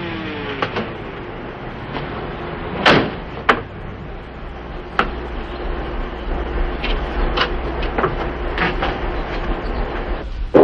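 A car door shutting about three seconds in, then a few knocks and footsteps on a hard floor, about two steps a second, over a steady low hum.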